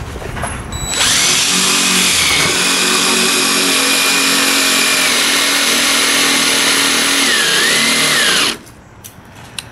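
Cordless drill running under load, boring into the bus's doubled sheet-steel side panel: one steady whining run of about seven seconds, its pitch sagging briefly near the end before it stops abruptly.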